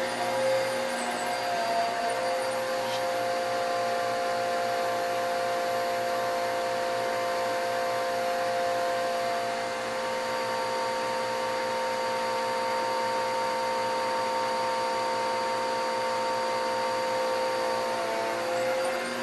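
Vacuum cleaner running steadily, a motor whine of several steady tones over rushing air, its pitch shifting slightly about two seconds in and again near the end.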